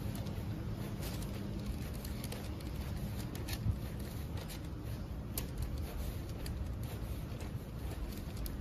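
Footsteps on asphalt pavement: a few light, uneven taps over a steady low rumble of wind and street noise.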